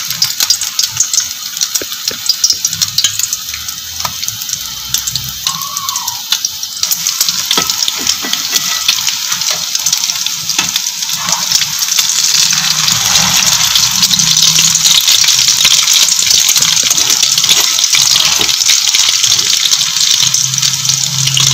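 Egg-coated chicken patties shallow-frying in hot oil in a pan: a steady sizzle with fine crackling and spatter, growing louder about halfway through.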